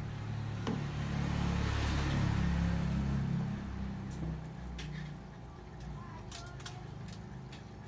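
A motor vehicle passing, a low rumble that swells over about two seconds and fades away. Later come a few light clicks of a metal fork against a paper noodle cup.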